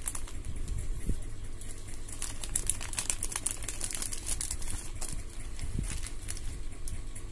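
A thin clear plastic parts bag crinkling and rustling in the hands as small kit parts and a screwdriver are pulled out of it: a rapid run of light crackles, thickest around the middle, over a low steady hum.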